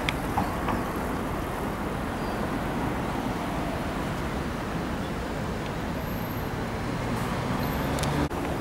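Steady road traffic noise: the rumble and hum of cars and engines passing.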